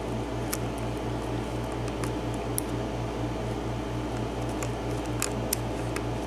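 Steady low hum throbbing about five times a second, from a fan or similar motor running in the room. Over it come a few faint, sharp ticks of a lock pick working the pin stack of a 7-pin lock cylinder.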